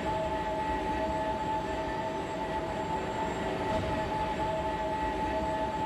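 Scrapyard ambience: a steady rumbling machinery noise with a sustained two-note hum over it, unchanging throughout.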